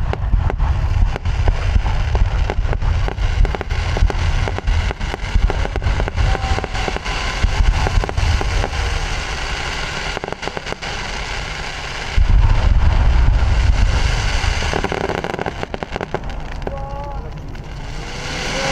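Fireworks exploding: a rapid run of crackling pops over low booms, with a big new boom about twelve seconds in. Crowd voices run underneath.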